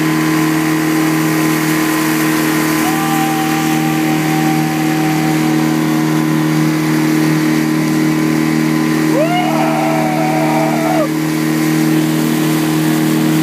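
Towing motorboat's engine running steadily under load, with the rush of its churning wake. A voice calls out twice over it, once a few seconds in and again near the middle.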